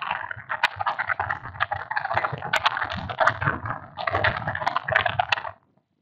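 Stylus scratching and tapping on a writing tablet as words are handwritten: a dense run of small quick clicks and scrapes that stops suddenly near the end.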